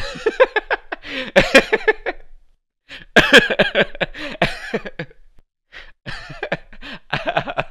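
A man laughing hard in three long fits, the laughs rapid and breathy with cough-like catches.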